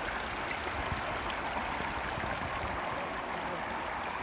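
Shallow rocky stream running over stones and small cascades: a steady rush of water.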